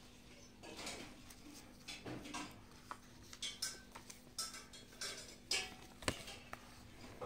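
Paper rustling as comic book pages are handled and flipped, in irregular bursts, with a sharp click about six seconds in.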